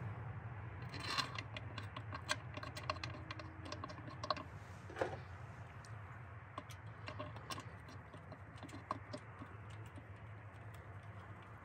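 Light, irregular metal clicks and taps as the rocker cover bolts are fitted and threaded in by hand, a few sharper clinks in the first five seconds.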